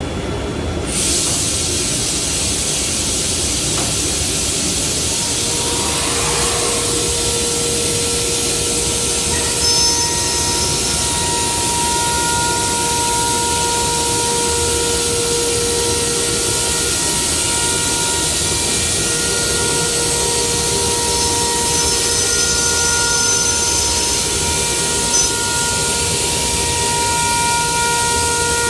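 A machine running with a steady, loud rushing hiss; a few faint steady hums come in after about six seconds.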